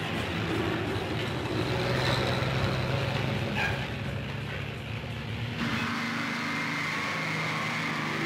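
Diesel engines of heavy earthmoving machines, wheeled scrapers and bulldozers, running while they work, a steady low engine drone. About five and a half seconds in the sound changes to a hissier one with less low rumble.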